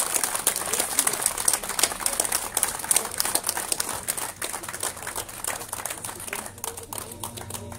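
Applause from a small crowd: dense, irregular hand-clapping that thins out and grows a little quieter toward the end.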